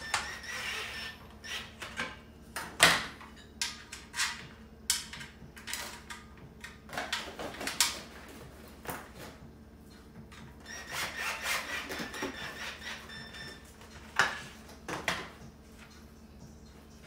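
Knocks, clicks and scraping as a black metal cart frame and its wooden shelf are handled and fitted together on a tile floor, with a few short runs of a cordless drill driving screws.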